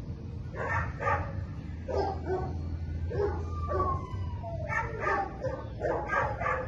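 A dog barking in bursts of short barks, with a drawn-out falling whine a little past the middle, over a low steady hum.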